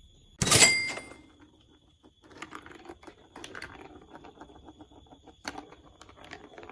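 Plastic marble run pieces: a loud clatter about half a second in with a short ringing tone, then a few seconds of many light clicks and rattles, like marbles rolling along plastic track.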